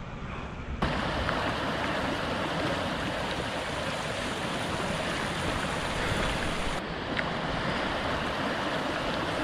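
Steady rush of a mountain stream cascading over rocks, starting abruptly about a second in.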